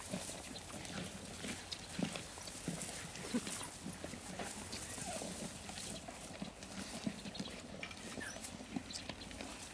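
A pack of African wild dogs feeding at a carcass: a busy run of tearing, chewing and scuffling noises, many short clicks and thuds, with brief high squeaks now and then.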